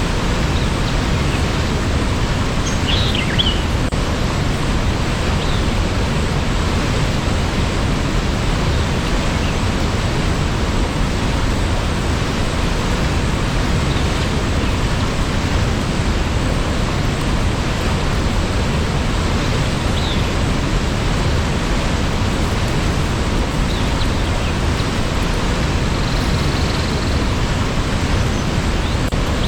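Waterfall's steady rushing roar of falling water, with a few faint high chirps a few seconds in and again later.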